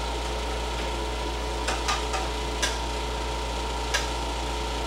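Window air-conditioning unit running with a steady hum, with a few short light taps in the middle of the stretch.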